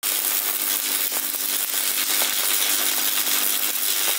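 Manual metal arc (stick) welding: the electrode's arc crackling steadily on steel, with a low steady hum under it.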